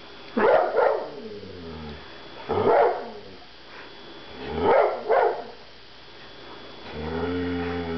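Airedale terrier barking and 'talking' in protest at the packing: short barks in three bouts about two seconds apart. Near the end comes a longer, lower, drawn-out vocalisation.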